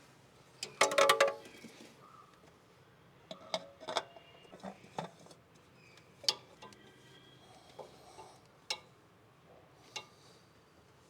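Metallic clicks, clinks and knocks of hand and tool work as a spin-on oil filter is screwed on and tightened. There is a quick run of clicks about a second in, then single knocks every second or so, some with a brief ring.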